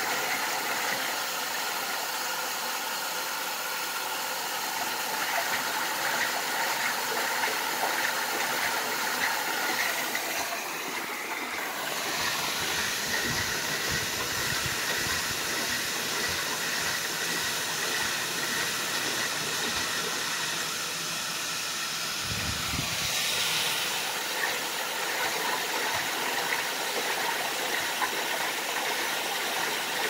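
Front-loading washing machine with water hissing steadily into the drum as it overfills, the sudsy water climbing up the door glass. A couple of low bumps come about halfway through.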